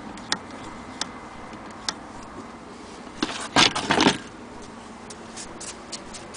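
Sharp metal clicks from hand-handling the parts of an antique hand-crank Singer 28K sewing machine: a few single clicks about a second apart, then a short clattering rattle about halfway through.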